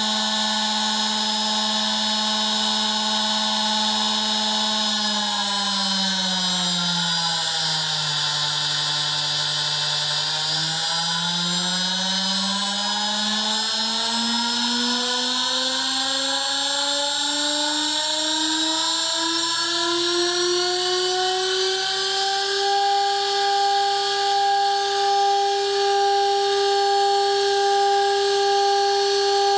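A 2.2 kW water-cooled Chinese CNC router spindle running free with a steady whine. Its pitch sinks briefly, then climbs smoothly and holds higher from about three-quarters through, as the spindle speed is changed and pushed up toward 21,000 rpm.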